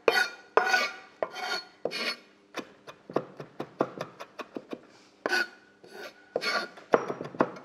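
Chef's knife chopping fresh rosemary on a wooden chopping board: longer rasping strokes of the blade scraping across the board near the start and end, and a run of short, quick chopping taps in the middle.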